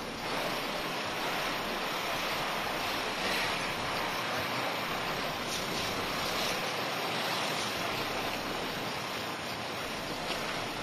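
Fire hose spraying water onto a fire: a steady rushing hiss.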